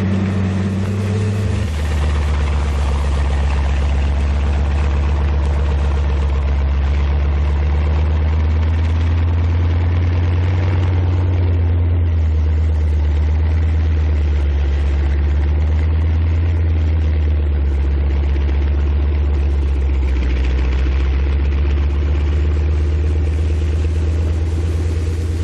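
Tank engine running steadily with a deep drone that drops a little in pitch about two seconds in.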